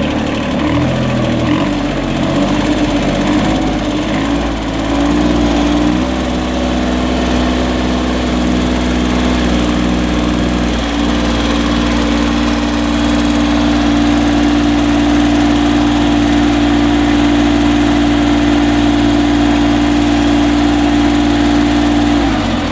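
VST Shakti 18 HP mini tractor's three-cylinder diesel engine running, its speed raised in steps over the first few seconds and then held steady. Near the end the pitch drops and the engine stops.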